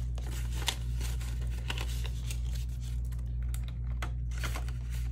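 Paper banknotes rustling and crinkling as they are counted and slid into a cash envelope, with a few sharp ticks, over a steady low hum.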